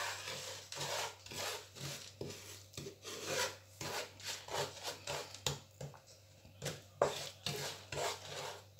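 Wooden spoon scraping and stirring lumpy, melting sugar around a non-stick frying pan, in repeated short strokes a few times a second, with a brief lull about six seconds in.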